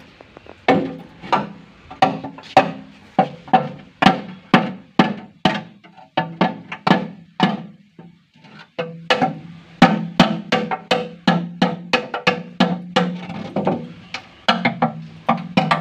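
A hammer striking the rim of a tin drum over and over, roughly two blows a second with a few short pauses. Each blow gives a metallic clank with a ringing tone as the edges of the tin stove are beaten down flat.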